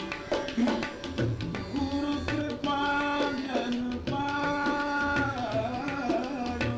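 A male Hindustani classical vocalist sings a bhajan in long held notes with a wavering ornament near the end, over drum strokes.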